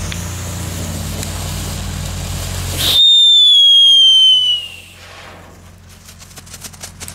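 A small ground fountain firework hissing as it sprays sparks, then giving one loud whistle of about a second and a half that falls slowly in pitch. After it, a faint spatter of crackling that grows toward the end.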